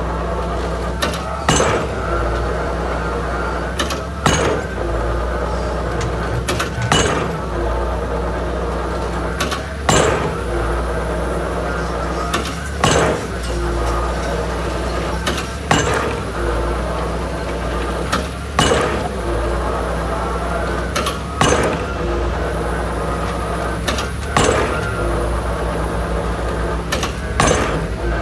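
Excavator-mounted drop hammer driving a square concrete pile: the ram strikes the pile head with a sharp bang about every three seconds, about ten blows, each with smaller clanks around it. The excavator's diesel engine runs steadily underneath.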